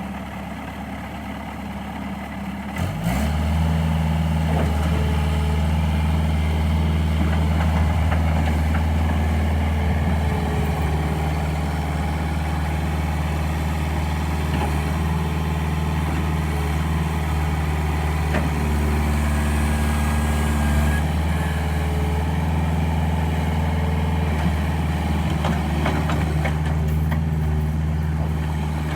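2010 Bobcat S175 skid steer's diesel engine running, stepping up to a louder, steady speed about three seconds in and holding there.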